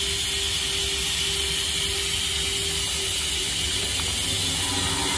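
Steady hiss of air in the cab of a 90 class diesel-electric locomotive, with the engine running underneath as a low rumble and a steady hum. The brake pipe is being vented through the open emergency cock.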